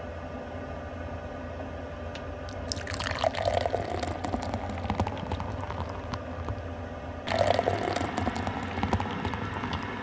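Cold dark beer poured into a thin glass in two goes, starting about three seconds in and again about seven seconds in, each a splashing pour followed by the crackle of foam settling.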